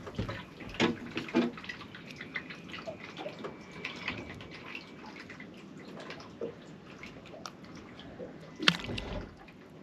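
Water dripping and sloshing, with irregular small clicks and taps, probably from a fish and line being handled as it comes aboard, and one louder knock near the end.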